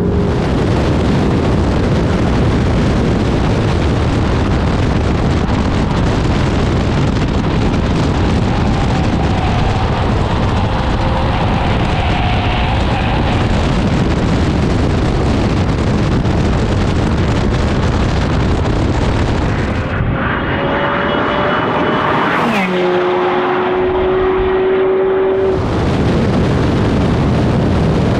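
McLaren 720S twin-turbo V8 driven hard at speed, heard through heavy wind and road noise on a camera mounted outside the car. Between about 20 and 25 seconds in, the wind eases and the engine note climbs, then drops in pitch and holds.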